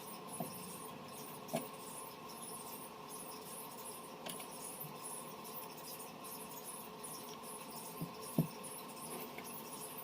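Faint steady hiss with a thin steady tone, broken by a few small clicks or taps, the loudest a pair near the end.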